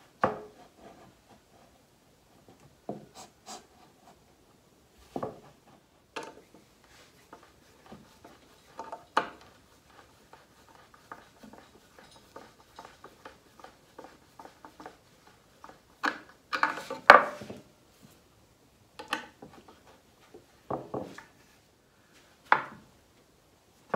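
Irregular knocks, clicks and rubbing from wooden table legs and a hand screwdriver being worked as the legs are screwed down onto a wooden tabletop. There is a louder cluster of knocks about two-thirds of the way through.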